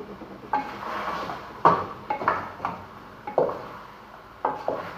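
A cooking utensil knocking and scraping against a pot in an irregular string of sharp clinks, as potatoes are added to and stirred into chicken adobo.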